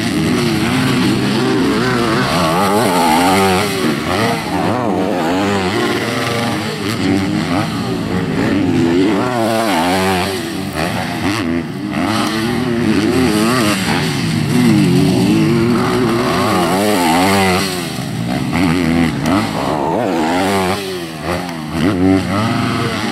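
Motocross bikes, Yamahas among them, revving hard around a supercross practice track, their engine pitch climbing and dropping again and again as they accelerate, shift and back off, with more than one bike heard at once.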